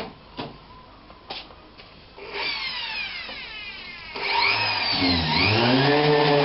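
A few knocks, then a power tool's motor whining with its pitch falling; about four seconds in it runs louder, dips briefly in pitch and settles into a steady run.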